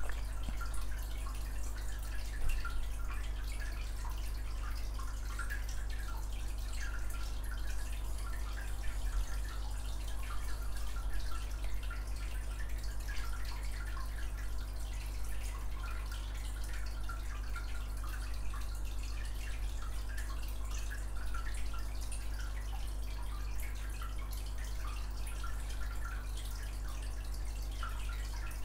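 A steady low hum with many faint, irregular small ticks over it.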